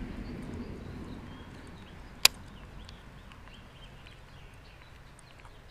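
Low rumble of water and handling noise from a kayak, fading over the first two seconds, then one sharp knock a little past two seconds in, the loudest sound; faint bird chirps behind it.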